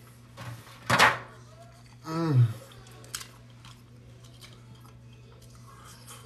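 A person eating: one loud, short crunch of a bite into a tortilla chip about a second in, then a short hummed 'mm' that falls in pitch, and a light click of a glass dish a little later. A faint steady hum underneath.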